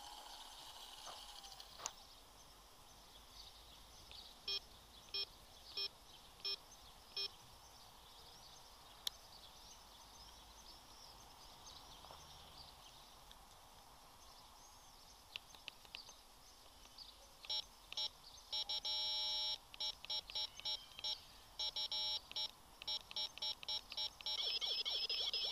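High-pitched electronic beeps: five short, evenly spaced beeps a few seconds in, then after a stretch of faint hiss a long run of rapid beeps ending in a held tone.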